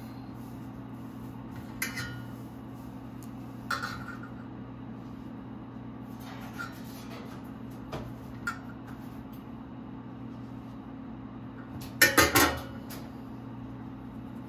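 Metal tools and parts clicking and clinking on a workbench over a steady low hum, with a quick run of three or four louder metallic knocks about twelve seconds in.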